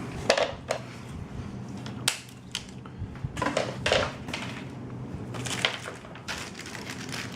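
Plastic packaging bags crinkling and rustling in irregular bursts as parts are pulled out of them, with a few light clicks of plastic pieces being handled.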